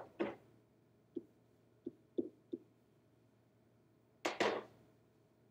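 A few light taps and clicks of a pen against an interactive whiteboard, then a louder double clatter about four seconds in as the pen is set back in the board's pen tray.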